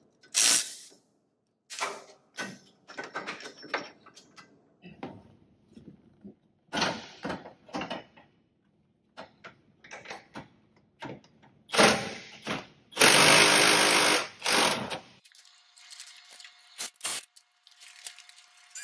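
Clanks and rattles of tools on a vehicle's front end, with a cordless power tool running in a short burst and then steadily for about two seconds, about two-thirds of the way in.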